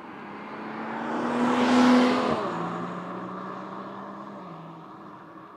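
BMW M240i's B58 three-litre straight-six driving past. It grows louder to a peak about two seconds in, then its engine note drops in pitch and fades as the car goes away.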